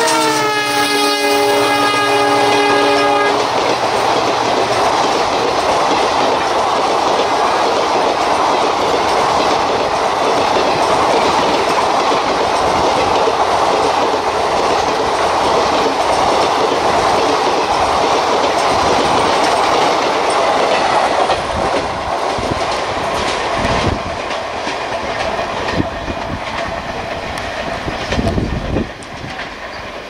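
Horn of a WDP-4 diesel locomotive sounding a multi-note chord as it passes, dropping in pitch and cutting off about three seconds in. The express's coaches then rush past at speed with a fast clickety-clack of wheels over rail joints, growing quieter over the last third.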